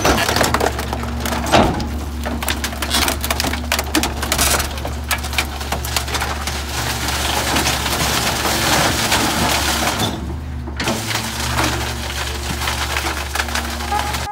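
Garbage truck compactor crushing bulky household furniture: dense wood cracking and splintering over the steady running of the truck's engine and hydraulics, easing briefly about ten seconds in.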